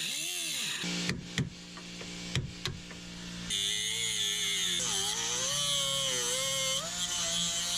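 Power drill running at varying speed. It spins up and down, pauses with a few sharp clicks, then runs on with a wavering pitch, typical of drilling out the rivets that hold a car's window regulator.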